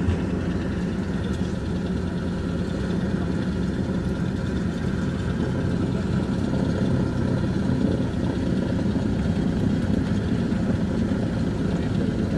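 Douglas DC-3 Dakota's radial piston engines running at taxi power, heard from inside the cabin as a steady low drone.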